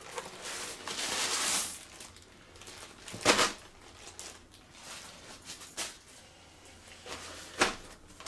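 A Bluetooth speaker's packaging being handled and opened: crinkling of plastic wrapping for the first couple of seconds, then scattered clicks and knocks, the two loudest about three seconds in and near the end.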